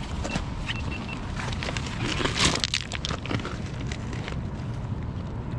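Rounded river cobbles clattering and knocking under boots and a landed shad being handled on the stones, with a cluster of sharper knocks about two and a half seconds in, over a steady low rumble.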